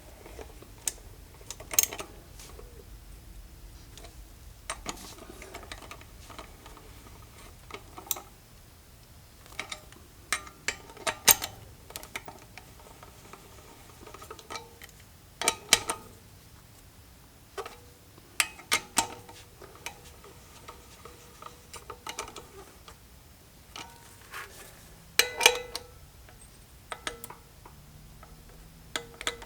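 Hand tools working on metal motorcycle wheel parts: irregular metallic clicks, clinks and sharper knocks, some ringing briefly, with quiet gaps between them.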